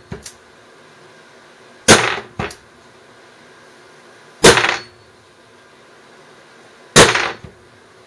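Hammer striking a hollow punch through thin 15-thousandths plastic sheet on a hardboard backer to punch out a shim washer. Three sharp blows come about two and a half seconds apart, with a couple of lighter taps between them.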